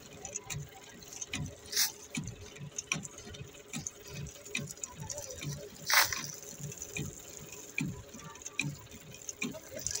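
Hot bitumen spraying from a hand-held, hose-fed spray lance onto loose crushed stone, sputtering and spattering unevenly. Two sharp clicks stand out, the louder one about six seconds in.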